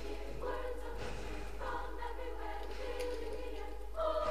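Background music: a choir singing long held notes, the chord changing about every second.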